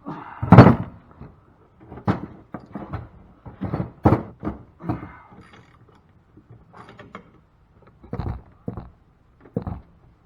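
Irregular metal knocks, clinks and clicks of hand tools working on a cast-aluminum pump as it is taken apart, with a loud thump about half a second in.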